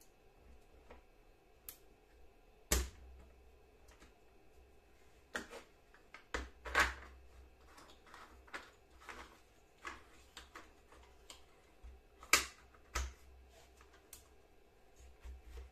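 Irregular clicks, taps and light knocks of a saw chain and plastic sprocket cover being handled while the chain is fitted onto a Makita corded electric chainsaw's bar and the cover is put on. The sharpest knocks come about three seconds in and again a little after twelve seconds.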